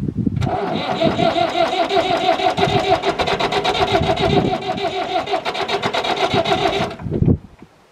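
David Brown 996 tractor's diesel engine being cranked over by its starter motor: a steady starter whine with an even, rapid chug of compression strokes for about six and a half seconds, then it stops abruptly with a last thump and the engine does not run on.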